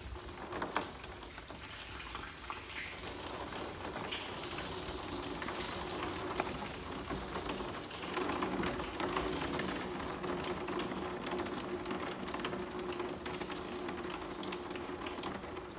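Water running from a thawing hose into a plastic IBC tote, a steady splashing trickle that grows a little stronger about halfway through.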